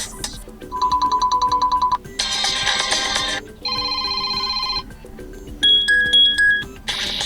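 A run of Blackview Tab 12 default ringtone previews, each lasting about a second before the next begins. First comes a fast-pulsing electronic beep, then a brighter, fuller chime, a steady ringing tone, and a two-note tone, over a soft music bed.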